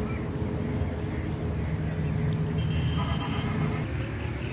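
An engine running steadily, a continuous low hum that eases off a little near the end.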